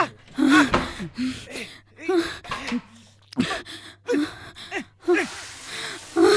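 A woman sobbing hard: short, wavering cries with gasping breaths between them. About five seconds in, a shower starts running, a steady spray of water.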